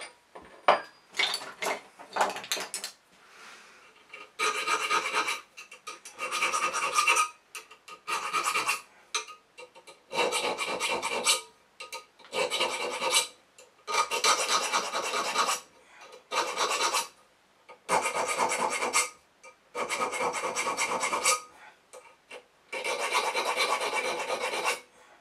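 A thin round file rasping across the steel spine of a knife blade, cutting decorative notches. The first few seconds hold only light scattered scrapes and clicks; from about four seconds in it comes in about ten runs of quick back-and-forth strokes, each a second or two long, with short pauses between.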